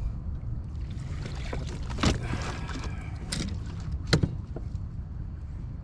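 Water splashing as a hooked bass is brought up to the boat, with a few sharp splashes, the loudest about four seconds in, over a steady low rumble.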